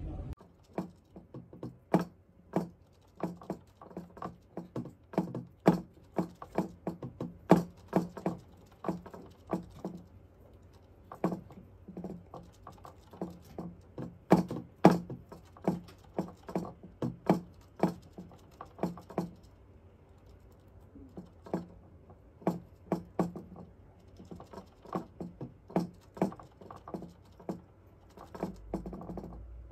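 Hamster drinking from the spout of a cage water bottle: irregular clicking, a few a second, with a couple of short pauses.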